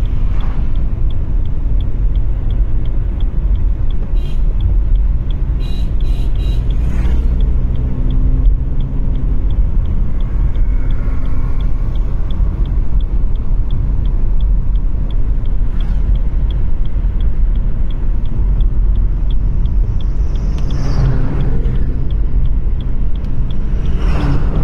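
Steady low rumble of engine and tyre noise heard inside a moving car's cabin, with a few short clicks about five seconds in and a louder vehicle passing close alongside near the end.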